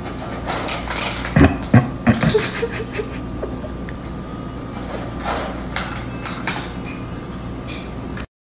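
A cat eating dry kibble from a bowl: a run of quick crunches and clicks as it chews, with a few louder knocks about a second and a half to two seconds in.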